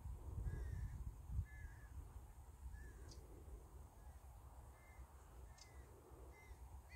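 Birds calling in short, harsh single calls, roughly one a second, over a low rumble that is strongest in the first second or so.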